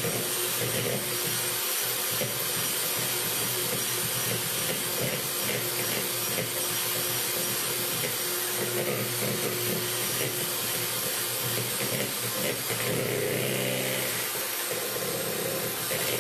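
Electric hand mixer running steadily, its beaters whipping powdered whipped-cream mix with cold milk in a bowl.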